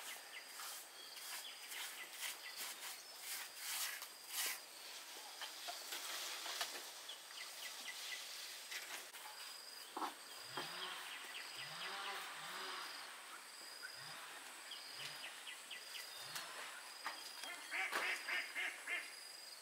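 Scattered sharp knocks and clicks, then a run of short low calls from an animal, with a faint high chirp repeating about once a second; a dense flurry of clicks near the end.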